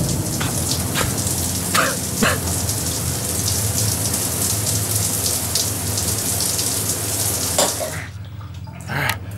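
Handheld shower head spraying a hard stream of water onto a person lying in a bathtub, a steady hiss that is shut off about eight seconds in.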